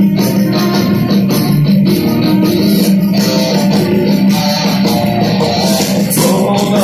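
Live heavy metal band playing an instrumental passage: distorted electric guitars, bass guitar and drums at a steady beat, with a violin in the line-up. It is loud, as heard from the audience in the hall.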